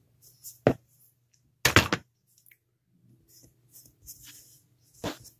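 Handling sounds at a craft table: hands and a tool knocking on the work surface while working a sheet of polymer clay, a few sharp knocks with the loudest cluster about two seconds in, over a faint low hum.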